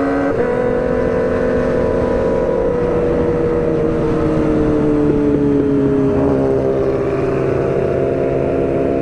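Sport motorcycle engine running at steady cruise, its note gradually falling as the revs slowly drop, under a continuous rush of wind and road noise while riding.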